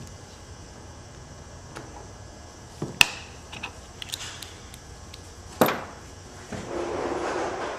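Small metal tools and parts handled at a workbench: two sharp clicks, the first ringing briefly, with a few light ticks between them, then a scraping rustle near the end.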